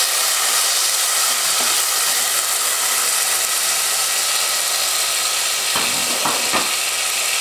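Oil sizzling steadily in a clay pot as chopped tomato, shallots and green chillies fry for a curry tempering, with a few brief knocks about six seconds in.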